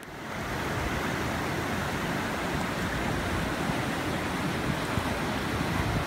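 River rapids rushing over rocks: a steady, full rush of whitewater that swells in over the first second.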